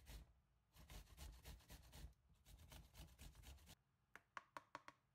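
Red onion being grated on a metal hand grater: a run of quick rasping strokes, about four a second, followed near the end by a short run of sharp taps.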